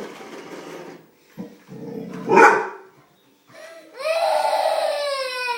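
Staffordshire bull terrier barking once, then letting out a long, drawn-out whine that slowly drops in pitch.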